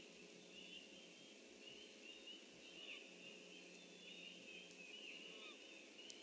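Faint dawn chorus of many distant songbirds, their chirps and warbles overlapping without a break, over a steady low hum.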